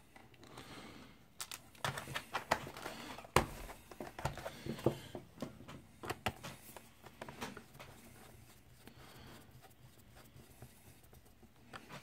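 A screwdriver and a small screw clicking and scraping against the plastic bottom panel of an Acer Aspire E 15 laptop as the screw is set and driven in. A run of sharp clicks and scrapes comes in the first five seconds, the sharpest about three seconds in, then fainter ticks follow.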